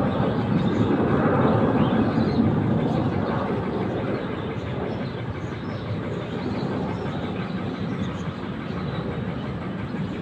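Jet airliner's engine noise as it climbs away after takeoff: a steady rumble that eases off somewhat after about four seconds.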